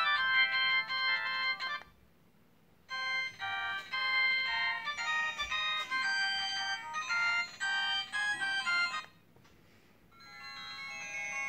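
Polyphonic ringtone melodies previewed on a CPA Halo 15 feature phone's small speaker. One tune cuts off about two seconds in, a second plays for about six seconds after a short pause, and a third starts softly and swells near the end.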